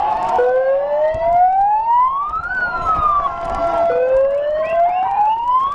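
A wailing siren, its pitch climbing slowly for about two seconds and then falling, twice, over crowd noise.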